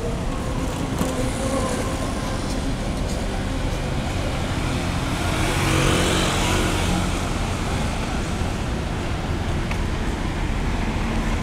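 Street traffic: a motor vehicle passes close by, getting louder toward about six seconds in and then fading, over a steady hum of traffic.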